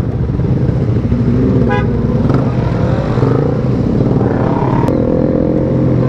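Motor scooter engine running in slow traffic, its pitch rising and falling with the throttle, among the engines of other motorcycles and cars. A short horn beep sounds just under two seconds in.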